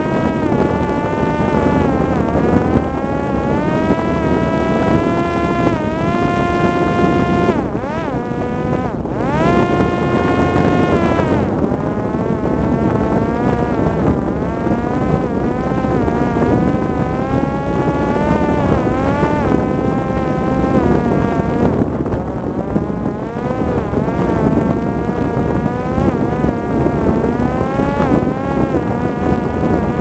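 Parrot Disco fixed-wing drone's electric motor and propeller running in flight: a buzzing whine that keeps rising and falling in pitch, with a short dip about eight seconds in, over a rush of air noise.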